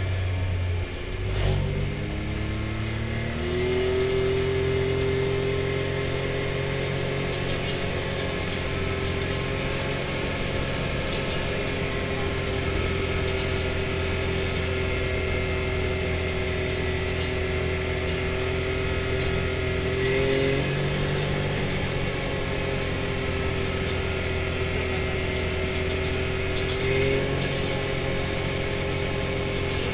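Can-Am Maverick X3 side-by-side's engine climbing in pitch as it picks up speed in the first few seconds, then running steadily at cruising speed with road noise from gravel underneath, its pitch briefly shifting twice later on.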